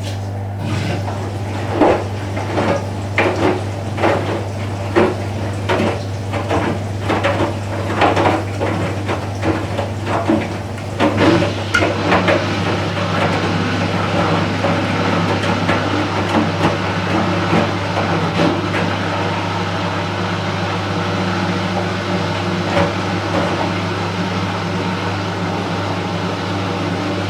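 Front-loading washing machine starting up with a steady hum underneath. For about the first twelve seconds there is a run of irregular knocks and clunks, which then settle into steady running and water noise.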